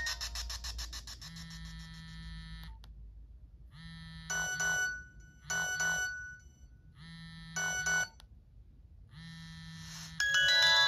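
Nokia X1 mobile phone ringtones: the end of one electronic tone fading out, then three short bright chimes spaced one to two seconds apart, and a louder chime starting near the end.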